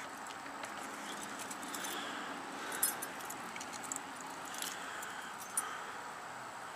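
A bunch of keys jingling and clicking faintly as they are tried one after another in the lock of a Craftsman tool box. A few short, sharp metal clicks stand out over a steady background hiss.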